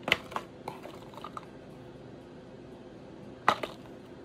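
Small cardboard medicine boxes handled and set down on a table. There is a cluster of light taps and rustles near the start, then two sharper taps about three and a half seconds in.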